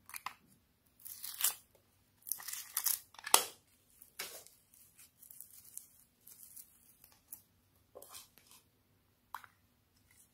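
Teal foam-bead slime (floam) being pulled apart and squeezed by fingers, giving irregular crisp crackling and tearing sounds in clusters, loudest about three seconds in.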